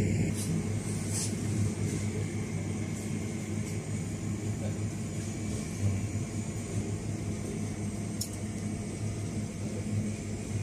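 Steady low hum of a shop's machinery, as from refrigerated display counters and ventilation, over a background hiss, with a few faint clicks.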